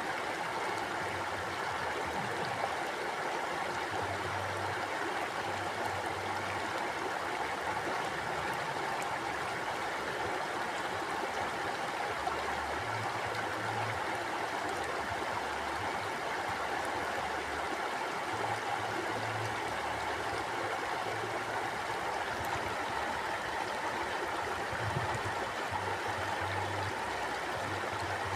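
Steady rushing and gurgling of a flowing stream over rocks, an even wash of water noise with no change.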